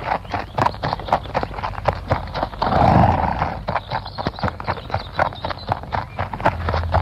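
Galloping-horses sound effect: hooves drumming in a rapid, dense clatter. About three seconds in, a louder horse call lasts roughly a second.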